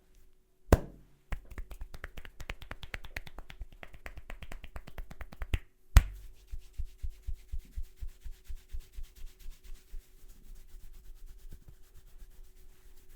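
A barber's hands during a head massage: a sharp snap, then a fast run of crisp taps for about four seconds. A second loud snap follows, then slower rhythmic taps about three a second that fade into light rubbing.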